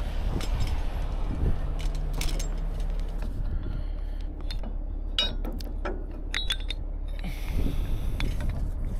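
Steel hooks and chain rigging on a heavy rotator tow truck's boom clinking and jangling as they are handled, in a run of sharp metallic clicks that comes thickest in the second half. A heavy truck's engine drones steadily underneath.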